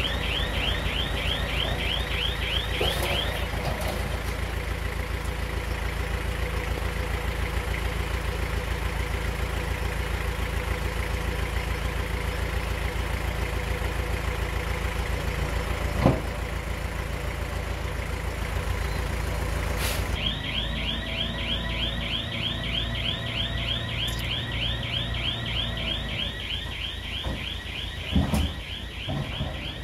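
Heavy earth-moving machine's diesel engine running steadily with a low rumble. Over it a fast, even, high-pitched pulsing sounds for the first few seconds, stops, and comes back about twenty seconds in. A single sharp click comes about halfway through, and a short knock near the end.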